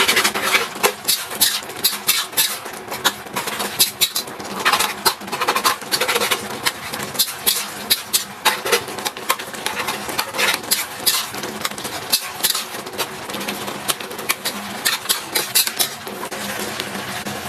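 Food sizzling in a hot pan during stir-frying, with irregular scrapes and clinks of a spatula against the pan.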